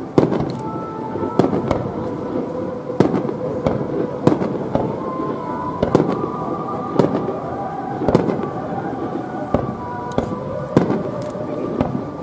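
Aerial firework shells bursting in close succession, a sharp bang every half second to a second or so, over a continuous background din.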